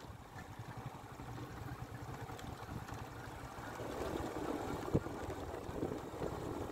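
Motorbike riding noise: a low engine rumble mixed with wind buffeting on the microphone. There is a single knock about five seconds in, typical of the bike jolting over the potholed road surface.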